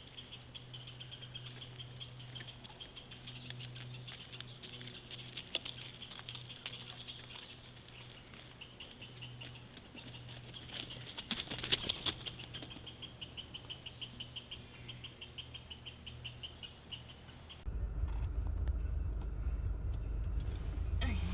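Deer moving through on a trail-camera recording: rustling and pattering, loudest around twelve seconds in, over a low steady hum and a fast high pulsing. Near the end the sound cuts abruptly to a louder low rumble.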